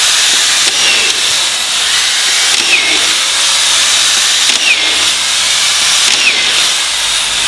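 Corded stand-up auto-feed collated screwdriver running, its motor whining steadily. The whine dips briefly about four times, roughly every two seconds, as each strip-fed screw is driven down into a timber board. Near the end the whine starts to fall in pitch.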